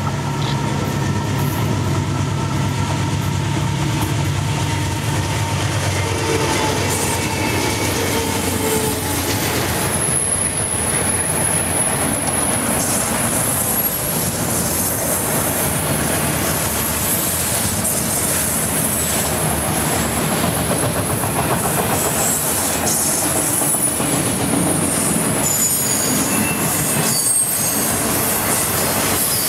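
Freight train passing close by. The diesel locomotives' engines are heard in the first few seconds, then a long string of autorack cars rolls past with steady wheel-on-rail noise and clickety-clack. A high, steady wheel squeal starts about ten seconds in.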